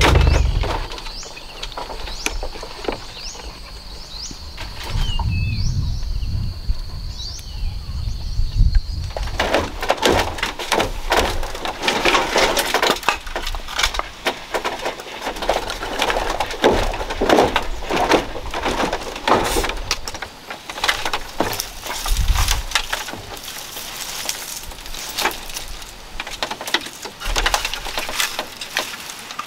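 A knife chopping and hacking on a bamboo deck: many sharp knocks and splintering cracks that begin about nine seconds in and carry on to the end. Before them, a steady high-pitched tone with short bird-like chirps.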